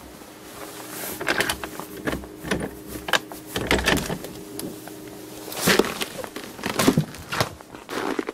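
Door handle and latch clicking and knocking as a door is opened, then footsteps on snow outside.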